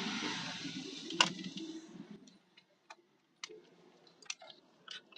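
A steady hiss with a low hum that fades out about two seconds in, one sharp click about a second in, then scattered light clicks and ticks.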